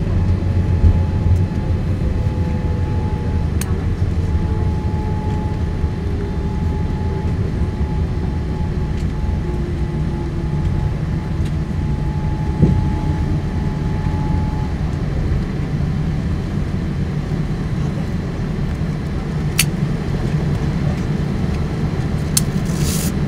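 Cabin noise of a Boeing 787-9 rolling along the runway after touchdown: a steady low rumble with the whine of its Rolls-Royce Trent 1000 engines gliding slowly down in pitch as they spool back. A steady higher tone fades out about two-thirds of the way through, and a few sharp clicks come near the end.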